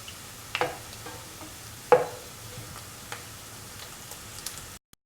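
Anchovies frying in oil in a pan with a faint, steady sizzle, while a utensil clinks sharply against the pan three times. The sound cuts out briefly near the end.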